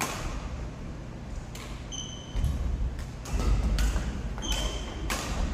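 Badminton rackets striking shuttlecocks in sharp cracks at irregular intervals, with sneakers squeaking twice on the hardwood gym floor and thudding footfalls.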